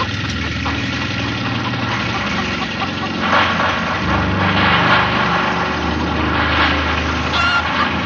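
Horror-film soundtrack: an engine running unevenly, with harsh louder surges about three and a half, four and a half and six and a half seconds in.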